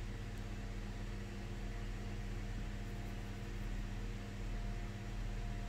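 Steady low hum with an even hiss, unchanging throughout: background room noise with no distinct events.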